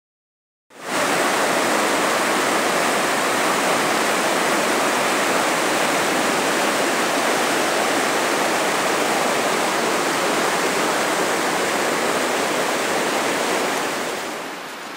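Fast, cold river swollen with snowmelt, rushing over rapids: a steady whitewater rush that starts about a second in and fades near the end.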